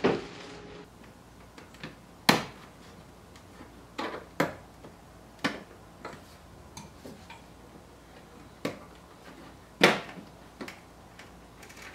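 Irregular sharp clicks and knocks, one every second or two, the loudest about two seconds in and again near the end, over a faint steady background.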